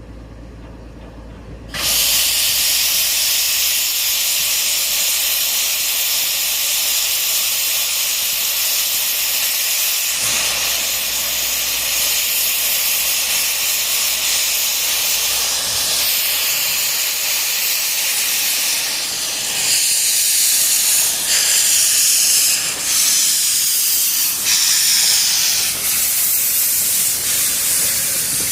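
Steam locomotive, Peckett No. 2130, venting steam: a loud hiss that starts suddenly about two seconds in and holds steady, then swells and dips unevenly near the end.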